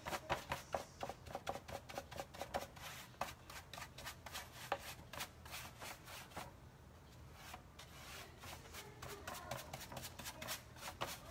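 Paintbrush bristles scrubbing antique wax onto a wooden tray in quick, repeated scratchy strokes, several a second, with a brief pause about halfway.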